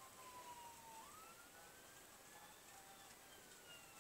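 Faint wailing emergency-vehicle siren: a single tone sliding slowly down, sweeping back up about a second in, then sliding slowly down again, over a faint steady hiss.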